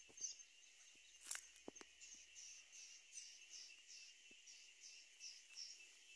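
Faint rural ambience of insects: a steady high drone and a high chirp repeating a little faster than twice a second, with a few soft clicks.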